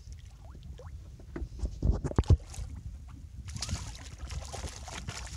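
Hooked speckled trout thrashing at the surface of shallow water, splashing hard in the second half. A few loud knocks about two seconds in, over a steady low rumble.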